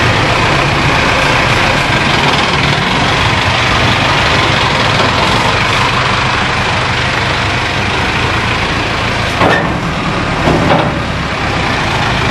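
Isuzu Elf engine of a mini tourist bus running steadily at low revs as the bus is driven up onto a carrier, with a couple of short knocks about nine and ten seconds in.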